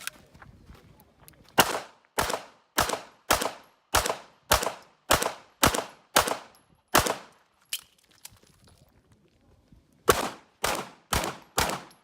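Rapid gunfire from a competitor shooting an IPSC stage. There are eleven shots about half a second apart, a pause of about two seconds, then four more shots at the same pace.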